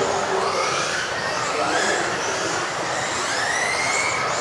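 Several electric RC off-road buggies racing together, their motors whining in overlapping tones that rise and fall in pitch as they speed up and slow down.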